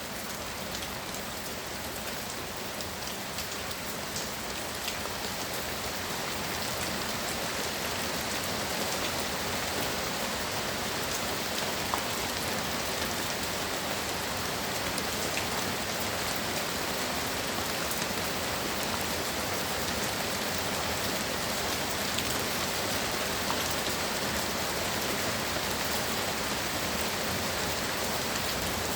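Heavy rain pouring steadily, with scattered individual drops ticking on a surface; it grows a little louder about six seconds in.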